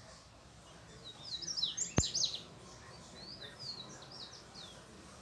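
Small birds chirping in quick, high notes, a burst of chirps about a second in and another run about three seconds in. A sharp click about two seconds in is the loudest sound.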